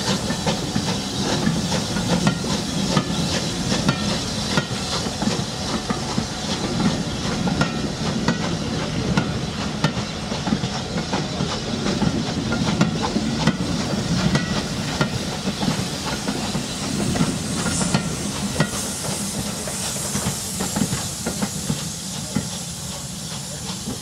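Passenger coaches of a steam-hauled train rolling past, wheels clicking and clattering over the rails, with the locomotive's steam working ahead. The sound eases a little near the end as the train draws away.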